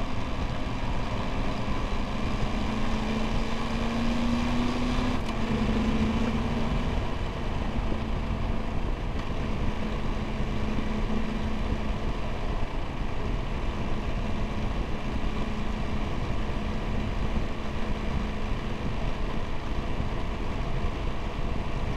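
Triumph Tiger 1200 GT Explorer's three-cylinder engine running steadily at road speed, under a constant rush of wind and road noise. The engine note rises slightly a few seconds in, then holds steady.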